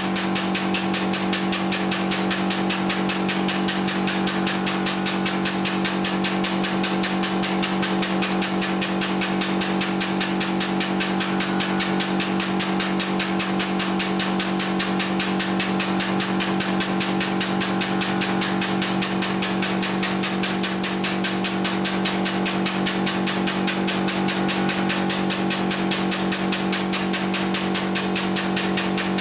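Hydraulic press pump running steadily under load, a hum with a rapid, even pulsing, while the ram slowly presses down.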